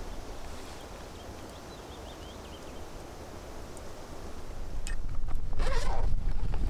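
Outdoor ambience: wind rumbling on the microphone with rustling, and a few faint high chirps in the first half. It grows louder over the last couple of seconds.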